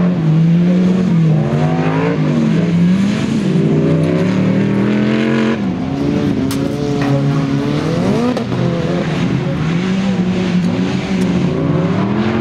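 Race car engines revving hard on a dirt autocross track, more than one car at once. The pitch repeatedly climbs and then drops sharply, a few times over, as the drivers shift gears and lift off the throttle.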